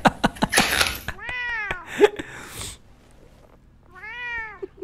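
Domestic cat meowing twice, two drawn-out meows about three seconds apart, each rising then falling in pitch; heard as a hungry cat asking for something.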